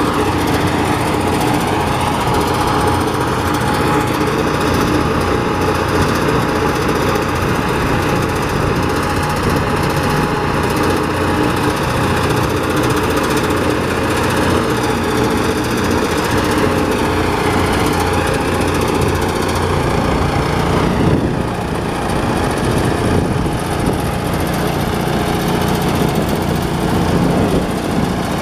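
Power rice thresher running steadily, its small engine and spinning threshing drum working as bundles of rice stalks are fed in.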